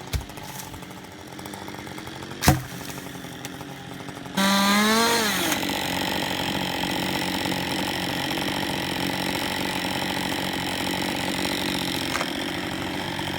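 Chainsaw idling, with a single sharp knock a couple of seconds in. About four seconds in it is throttled up suddenly, the pitch climbing, and it then runs steadily at high revs.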